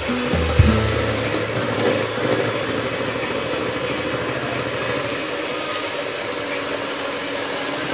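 Electric hand mixer running steadily, its beaters whirring through muffin batter in a stainless steel bowl, with a brief knock about half a second in.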